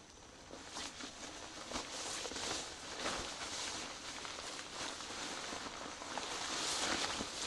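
A tarp rustling and crinkling as it is unfolded and shaken out by hand, growing louder near the end as the sheet is lifted and spread.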